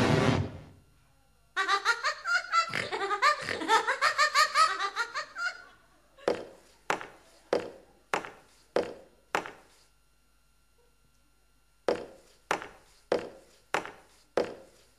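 Laughter in quick bursts for about four seconds, then sharp clicks at an even beat about 0.6 s apart: six of them, a pause of about two seconds, then five more.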